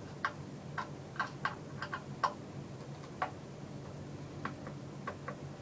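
A screwdriver backing screws out of a TV's casing, with light, irregular clicks as the tip turns and catches in the screw heads; the screws are coming out easily.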